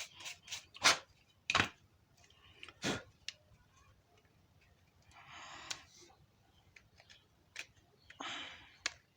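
Sharp clicks and taps of small plastic phone parts being handled and fitted together, with two brief scraping rubs, one about five seconds in and one near the end.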